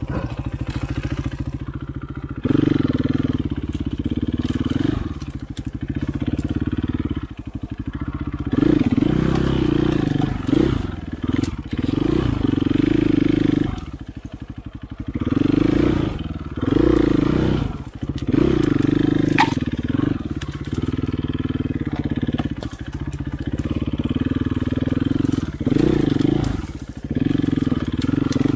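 Dirt bike engine at low trail speed, the throttle opened in short repeated bursts so the engine note swells and falls every few seconds. Scattered knocks and clicks run through it.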